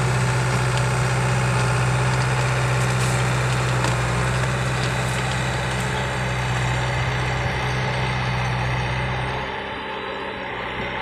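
Caterpillar bulldozer's diesel engine running steadily with a strong low hum. The hum drops away about nine and a half seconds in, leaving a quieter running sound.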